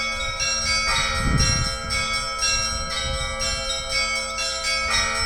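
Russian Orthodox church bells ringing together in a peal: small high bells struck in quick succession over the long ringing of larger bells, with a heavier strike about a second in and again near the end.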